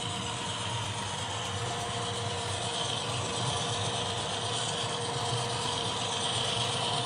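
HO scale model train running along the track: a steady mechanical whirring and clicking of the locomotive's drive and wheels on rail, growing slightly louder.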